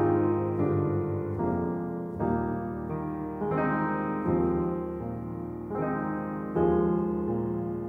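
Slow, quiet piano music: chords struck about once a second, each left to ring and fade before the next.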